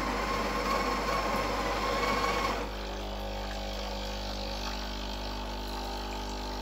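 Breville Barista Express BES870 dispensing from its hot water outlet into a glass: the pump hums steadily under hissing, spluttering water. About two and a half seconds in the hiss drops away, leaving a smoother, even pump hum.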